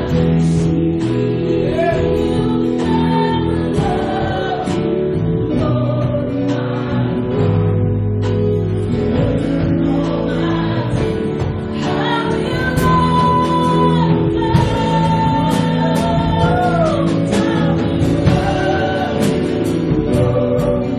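Live worship band playing a gospel praise song, with a singer over keyboard, guitars and drums, and steady cymbal and drum hits throughout.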